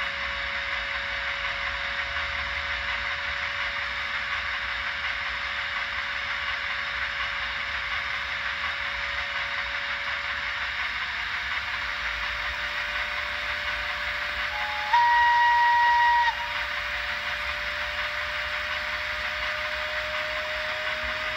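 Trix 22968 HO scale Crocodile electric locomotive model running on a rolling-road stand: a steady hiss of running noise with a constant whine that creeps slowly up in pitch. About fifteen seconds in, a horn sounds from the model's sound decoder for about a second and a half, the loudest thing.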